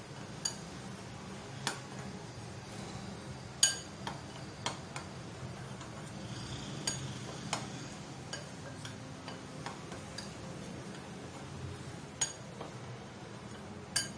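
Metal spoon stirring dry flour in a glass bowl, with scattered clinks of the spoon against the glass, two of them sharper, a few seconds in and near the end. A steady low hum runs underneath.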